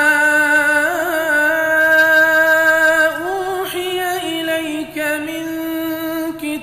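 A reciter chanting the Quran in melodic tajweed style, one solo voice drawing out long held notes with small melodic turns as it moves from note to note.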